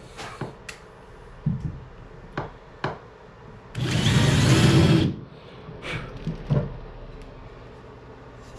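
Power drill running for about a second as it bores a bolt hole through wood, with light knocks and clicks of the wood and tools being handled before and after.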